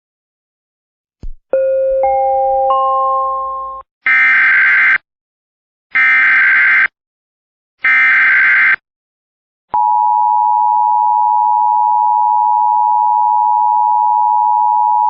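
Emergency Alert System tones opening a tornado warning. A rising three-note electronic chime is followed by three one-second bursts of SAME digital header data, a second apart, each a harsh warbling screech, and then, about ten seconds in, the steady two-tone EAS attention signal.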